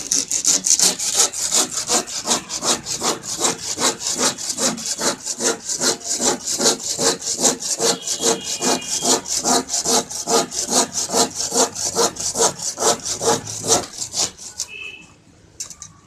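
Handsaw cutting through the end of a hollow PVC door panel, in quick, even back-and-forth strokes about four a second, stopping a little before the end.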